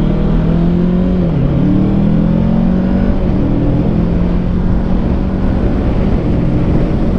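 Kawasaki Ninja 650 parallel-twin engine running under way at highway speed, its pitch dipping briefly about a second and a half in and then settling slightly higher, over steady wind and road rush.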